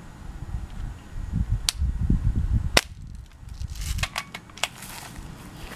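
Two sharp shots about a second apart, fired at clay discs, the second one the louder. A low rumble sits under the first half, and lighter clicks and rustles follow.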